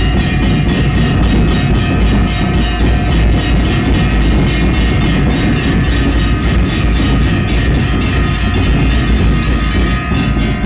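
Nagada drums beaten in a fast, even rhythm of about five strokes a second, loud and continuous.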